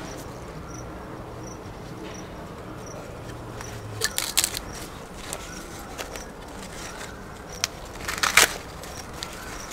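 Dry corn husks crackling and tearing as they are pulled back from a harvested cob, in a few short crackles about four seconds in and again near the end, over a faint low hum that stops about four seconds in.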